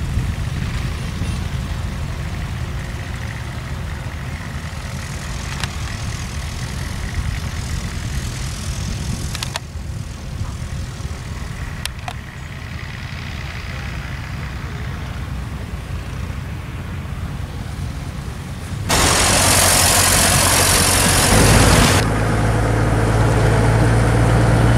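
Heavy diesel vehicle engines idling with a steady low rumble, changing across shots. Near the end there is a loud rush of wind on the microphone for about three seconds, then a steady low engine hum.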